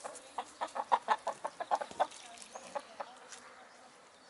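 Hens clucking: a quick run of short clucks, about eight a second, for the first two seconds, then a few spaced single clucks.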